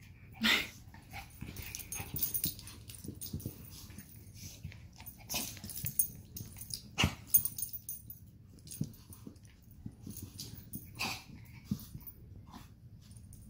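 Two small dogs, a chihuahua-pug mix and a chihuahua, play-fighting: scattered short, sudden vocal sounds and scuffles, the loudest about half a second in and about seven seconds in.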